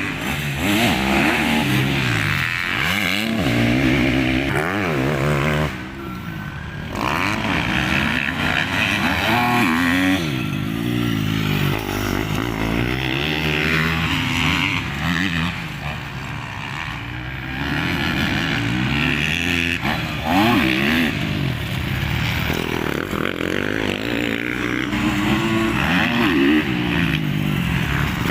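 Several motocross bikes racing on a dirt track, their engines revving up and down through the gears and overlapping as they pass, with a short lull about six seconds in.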